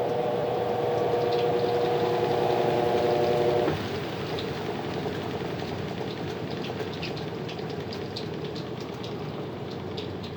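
Colormaq LCA12 top-load washing machine in its spin cycle, running smoothly without jumping. Its motor whine cuts off suddenly about three and a half seconds in, and the drum keeps turning with a lower, slowly fading rushing hum and light ticks.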